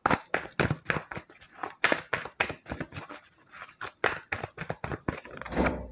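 Tarot cards being shuffled in the hands: a rapid, irregular run of card clicks.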